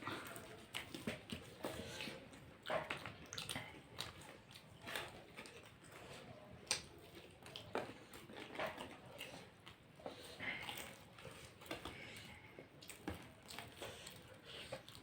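People chewing and biting into fried snacks: irregular small clicks and mouth noises, a couple a second.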